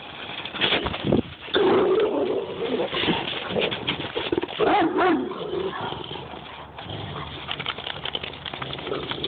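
Dogs vocalizing in rough play: low growling and moaning grumbles, loudest through the first five seconds or so, then quieter.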